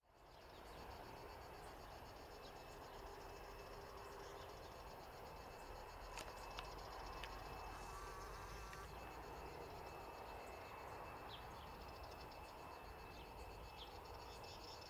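Faint insects chirring steadily in a high, shimmering texture, over a low steady rumble of distant jet engines. It fades in at the start and has a few sharp ticks in the middle.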